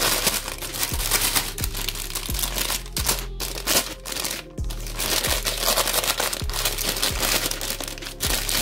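Tissue paper crinkling and rustling as hands unwrap and crumple it, over background music with a steady low beat.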